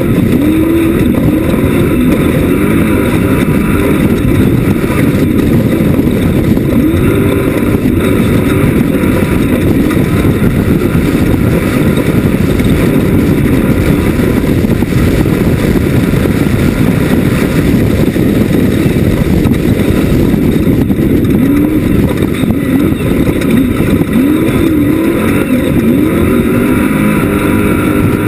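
Class 1 off-road race buggy's engine running hard and loud, its pitch rising and falling again and again as it revs up and eases off, over a dense rumble of drivetrain and terrain noise.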